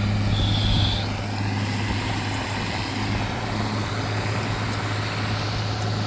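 Tractor engine running steadily under load while pulling a hay baler, a constant low hum over mechanical clatter. A brief high tone sounds about half a second in.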